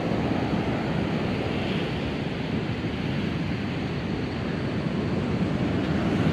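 Ocean surf breaking and washing up the beach: a steady rush of waves that swells a little near the end.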